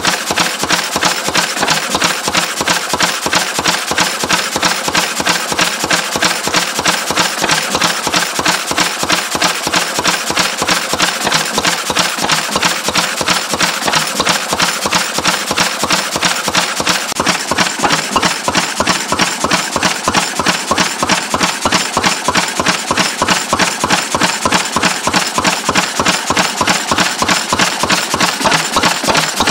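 Lister B single-cylinder stationary engine running steadily after a test start, firing with an even, rapid beat of sharp strokes.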